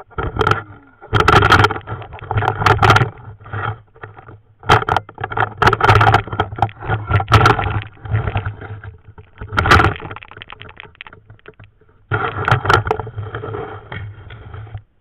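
Irregular bursts of muffled scraping and sloshing as a person wades through shallow water and pushes along a muddy, root-tangled bank, with short pauses and a stop shortly before the end.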